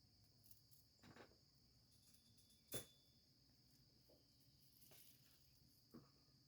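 Very faint, steady high-pitched insect chorus, with a few short soft knocks scattered through, the sharpest one near three seconds in.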